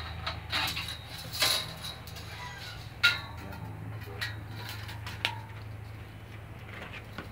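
Sharp metallic clinks and knocks, about seven of them spread over several seconds and the loudest about three seconds in, as a band saw's blade and upper blade guide are handled and fitted by hand. Under them runs a faint steady low hum.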